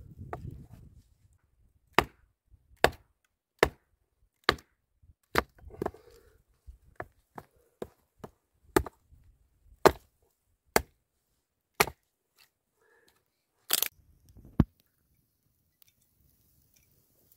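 Hatchet chopping a wooden board into kindling: about a dozen sharp, separate wood-splitting strikes, roughly one a second, with a louder crack near the end of the chopping.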